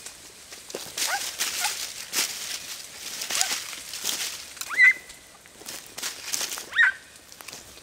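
Andalusian podenco hounds giving short, high yelps, about five of them, the loudest about five seconds in. It is the excited cry of hounds hunting on a rabbit's scent.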